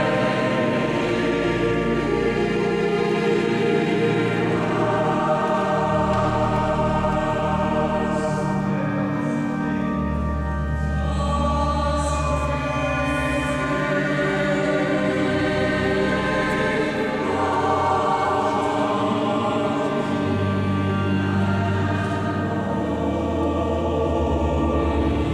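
A choir singing slow, long-held chords that change every few seconds over deep sustained bass notes, echoing in a large stone cathedral nave.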